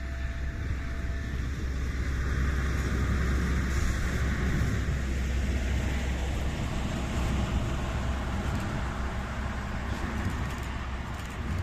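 SM42 diesel shunting locomotive approaching and passing with a heavy low engine rumble that grows louder over the first few seconds. Wheel and rail noise from the loaded car-carrier wagons comes in behind it.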